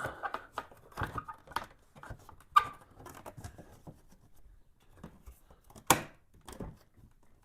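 Handling noise from a part being fitted back onto a Honda GL1800 Gold Wing at the end of a battery change: scattered light clicks and taps, with a sharp click about two and a half seconds in and a louder knock near six seconds.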